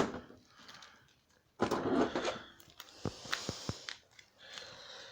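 Small action figures being handled: a knock at the start, a rustling scrape about a second and a half in, then several sharp clicks and knocks.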